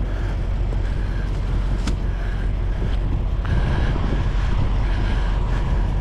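Footsteps crunching through deep snow, about one step every 0.7 seconds, over a steady low rumble.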